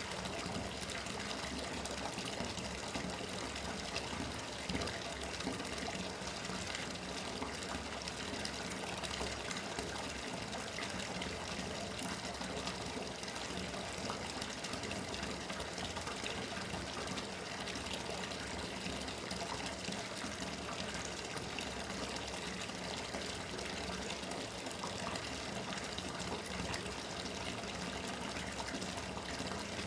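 Bathtub tap running steadily, water pouring into the tub.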